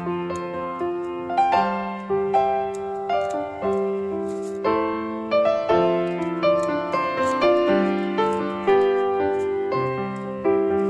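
Background piano music: a gentle melody of single notes struck one after another, each ringing and fading.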